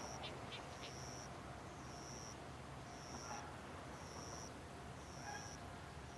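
A railway level-crossing alarm rings its last few rapid strikes and falls silent about half a second in. After that there is only a faint, high-pitched chirp repeating about once a second over a low background hum.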